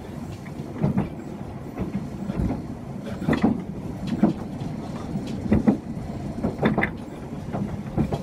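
Chikuho Electric Railway electric train running, heard from inside the car: a steady rumble with sharp wheel clacks over rail joints, several coming in quick pairs.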